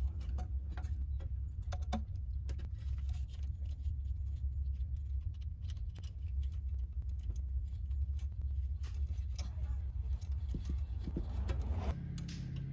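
Light metallic clicks and taps of small hardware being handled, with nuts threaded by hand onto the studs of a battery charger's diode plate, over a steady low hum.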